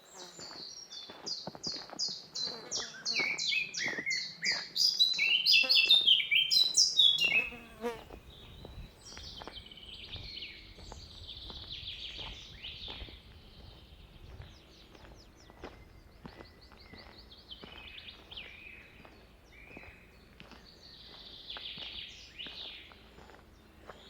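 Forest songbirds singing. A loud, fast song of rapidly repeated high notes fills the first several seconds, then fainter chirps and short trills carry on.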